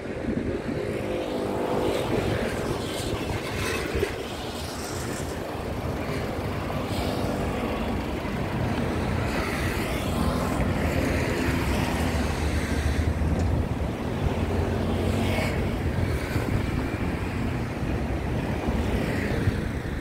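Street traffic: motor vehicles passing steadily, with a heavier engine rumble swelling about halfway through.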